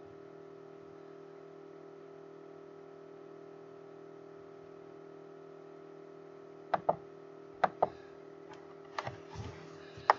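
A steady low hum, then from about two-thirds through a handful of sharp clicks at the computer, some in quick pairs, as the browser is clicked on to the next photo.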